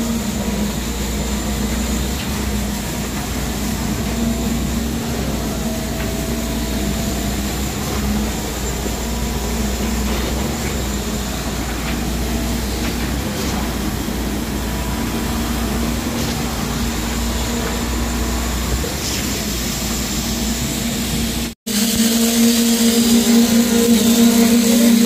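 Construction machinery running steadily during a concrete pour: a constant hum over a deep rumble. It breaks off sharply about 21 seconds in, and a slightly lower, louder hum takes over.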